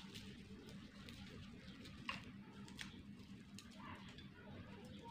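Faint crackle and light clicking of garlic cloves being peeled by hand, with a couple of sharper ticks about two and three seconds in, over a low steady hum.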